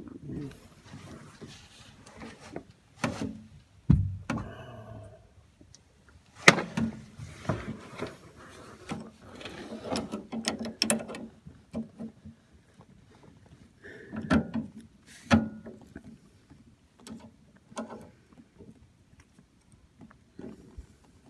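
Irregular knocks, clicks and scrapes of hands fitting washers and bolts onto an outboard motor's steering cable mount, with a brief squeak about four seconds in.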